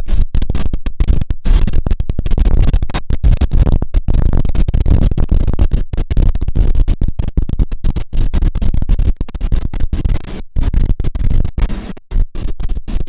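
Number 28 tram running, a loud low rumble and rattle of the car heard from inside, choppy, with the sound cutting out in many brief gaps.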